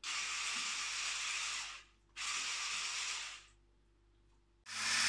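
Hand blender switched on twice in a metal bowl of yellow mixture: a first run of nearly two seconds, then a second of about a second, each starting and stopping abruptly.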